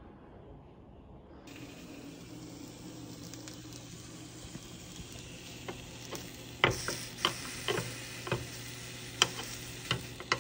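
Zucchini and bell pepper pieces sizzling in a hot rectangular pan, over a low steady hum; the sizzle starts about a second and a half in. From the middle on, metal tongs click sharply against the pan several times as the pieces are turned.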